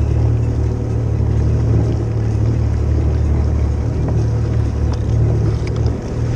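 Jet ski engine running steadily at low speed.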